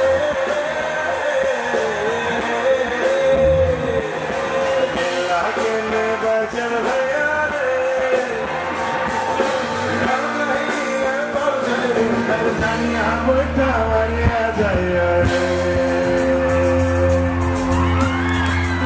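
Live concert music: a singer with a full band amplified through a PA, a deep bass coming in a few seconds in and held chords near the end, with some shouting from the crowd.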